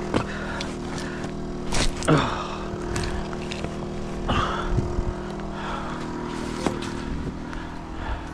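Rusty iron wheel hub and a neodymium fishing magnet knocking and clanking on a handful of occasions as the hub is worked off the magnet, over a steady low mechanical hum.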